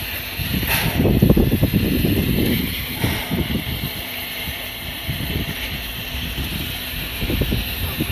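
C11-class steam tank locomotive standing in steam, with a steady hiss of escaping steam that flares briefly about a second in, over a low, uneven rumble.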